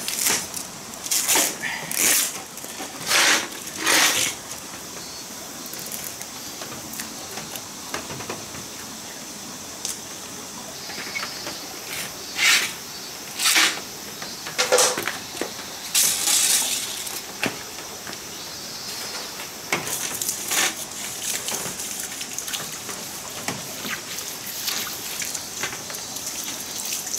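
Scrubbing brush being worked along the mesh groove of a screen-door frame under a garden hose, cleaning it: short scrubbing strokes in bunches, over a steady hiss.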